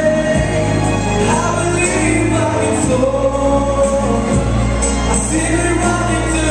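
A man singing a song through a microphone and PA over instrumental accompaniment with a steady beat, holding long notes.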